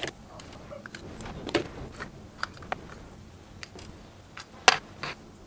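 Small plastic eyeshadow pots being handled: scattered light clicks and taps as lids are opened and pots are picked up and set down, the loudest a little before the end.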